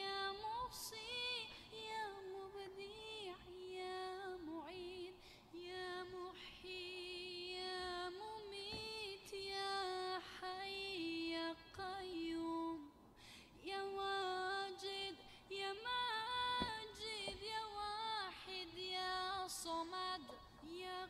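Background music: a woman singing a slow melody with long, wavering held notes and ornamented turns.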